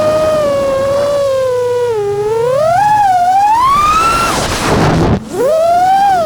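Drone motors and propellers whining, the pitch sliding down and up as the throttle changes. A rushing noise swells about four seconds in, the sound cuts out briefly, then the whine returns rising and falls away near the end.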